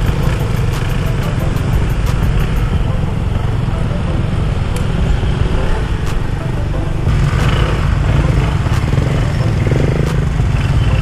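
Small motorcycles in a riding convoy running along the road, with heavy low wind rumble on the microphone throughout.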